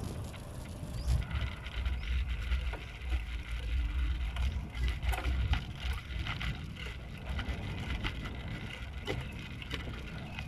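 Bicycle ridden over a rough, cracked concrete road: scattered rattles and clicks from the bike over a steady low rumble of wind on the microphone.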